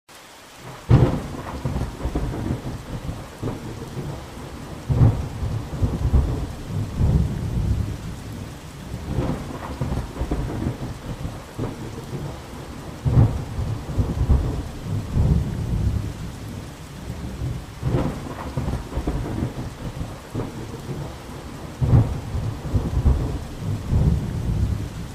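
Thunderstorm sound effect: steady rain falling, with a thunderclap and long low rumble about every four seconds, the first about a second in.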